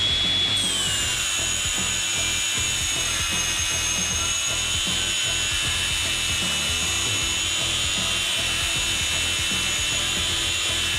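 DeWalt DCG416 cordless brushless angle grinder on a 20-volt battery, its 4.5-inch flap disc grinding a steel bar under steady pressure, throwing sparks. The motor whine drops slightly as the disc bites about a second in, then holds steady under load over the continuous grinding noise.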